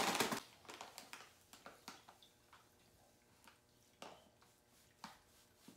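Faint, scattered rustles and light clicks of a paper bag of sugar being picked up and handled, after a brief noisy clatter right at the start.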